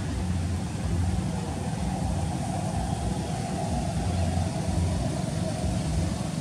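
Steady low hum of an engine running, with a fainter higher drone in the middle.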